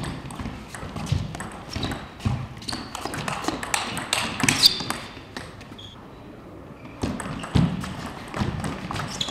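Table tennis rally: the ball clicking off the rackets and the table in quick exchanges, with short shoe squeaks on the court floor about four seconds in. It goes quieter for about a second and a half past the middle, then the clicks of the next rally start.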